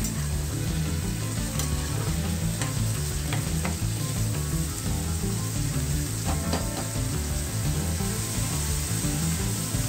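Chopped onion, carrot and capsicum sizzling steadily as they fry in a pan, stirred with a perforated metal spoon that clicks and scrapes against the pan a few times.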